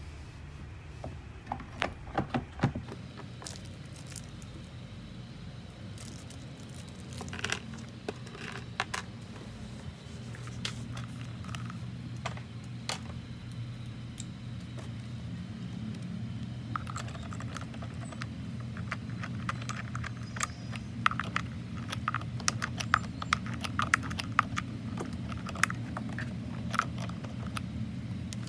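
Plastic and metal clicks and clinks as a kids' ride-on car's plastic wheel is fitted onto its metal axle, with a quick run of small clicks in the second half, over a steady low hum.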